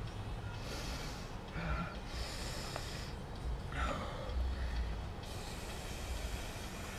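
A man breathing hard from exertion during a workout, with several forceful noisy breaths spread over the first five seconds.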